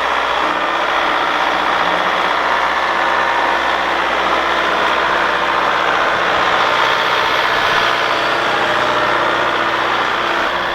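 Skid steer loader's diesel engine running steadily at close range while the machine works.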